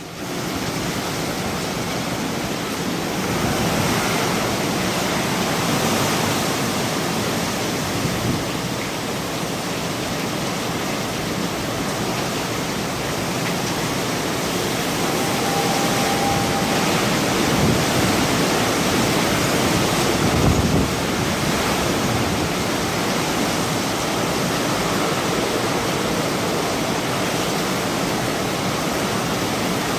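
Hurricane Michael's hurricane-force winds blowing hard and steadily as a dense rushing noise, swelling slightly now and then. A faint thin whistle sounds briefly about halfway through.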